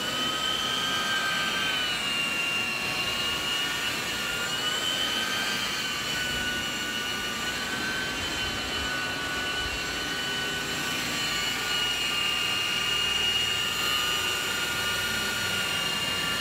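Truck-mounted hot water extraction carpet cleaning machine running: the steady high whine of its vacuum drawing through the hose and cleaning wand, with the pitch wavering slightly in the first few seconds and then holding steady.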